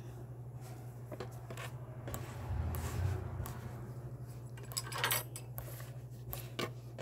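Handling noises: scattered small clicks and light knocks, with a louder dull rumble about two and a half seconds in and a cluster of clicks around five seconds in, over a steady low hum.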